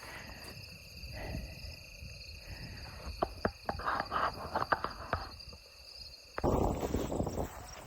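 Crickets or other field insects trilling steadily in prairie grass, with scattered crackling clicks in the middle. About six seconds in, the insect sound cuts off abruptly and a rougher, low noise takes over.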